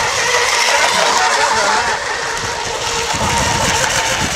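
Radio-controlled model racing hydroplanes running flat out, their small engines giving a steady high-pitched whine.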